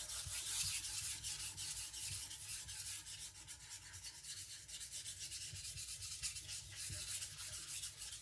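Steel cleaver blade being stroked back and forth on a whetstone while it is sharpened: a continuous run of quick, gritty scraping strokes.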